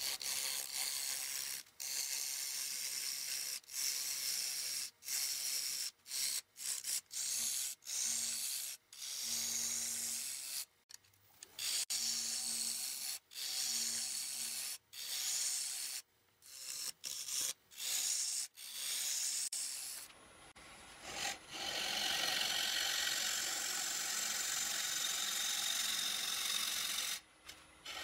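A turning tool cutting the face of a cherry blank spinning on a wood lathe: a hissing scrape in many short passes of about a second, with brief breaks as the tool is lifted, then one longer steady pass through the last third.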